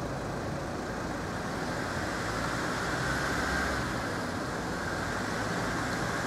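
Steady rumble of vehicles at a street level crossing, swelling a little about three seconds in; no crossing bell is heard.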